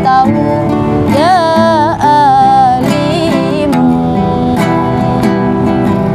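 A woman sings a sholawat, an Islamic devotional song, in a wavering, ornamented melody over a strummed acoustic guitar. The voice falls away a little past halfway while the guitar keeps strumming.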